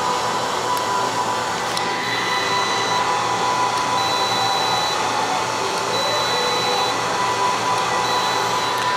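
Relays on an Arduino-driven relay board clicking faintly twice in the first two seconds, over a steady hiss with a thin, continuous whine.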